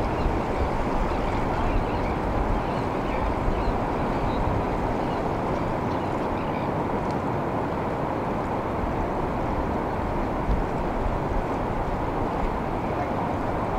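Steady wash of ocean water and surf around a pier, an even rushing noise with no distinct waves breaking, and a few low bumps of wind on the microphone.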